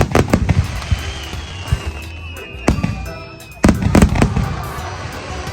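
Aerial fireworks bursting: loud booms with crackling tails right at the start, once near the middle, and a denser cluster a little before the end, with a thin falling whistle in between.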